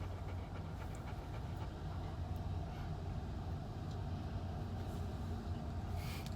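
Steady road and engine rumble inside a moving car's cabin, with a brief hiss shortly before the end.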